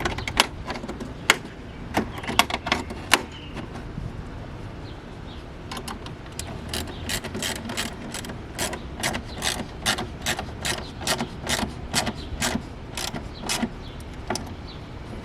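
A hand ratchet being worked, clicking. A few scattered clicks come first, then a steady run of about three clicks a second from about six seconds in until near the end.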